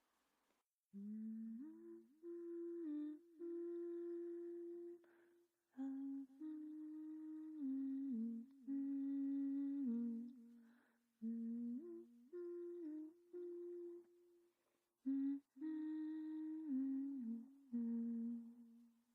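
A voice humming a slow, wordless melody in short phrases broken by brief pauses, starting about a second in.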